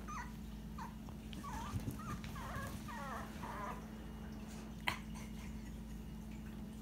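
Dachshund puppy whimpering faintly in short, high squeaks over the first four seconds, then a single sharp click about five seconds in.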